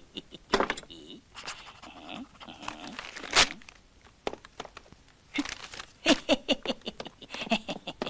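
A man's voice making wordless cartoon vocal noises in short irregular bursts: mumbles, grunts and yelps rather than words. There is a sharp click about three and a half seconds in.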